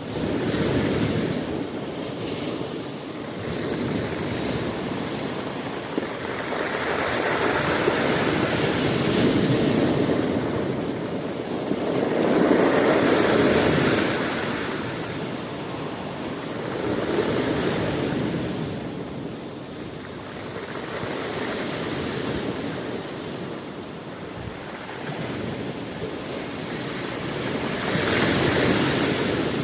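Sea waves breaking and washing on a shore, a continuous rush that swells and subsides every few seconds, with the biggest surges about twelve seconds in and near the end.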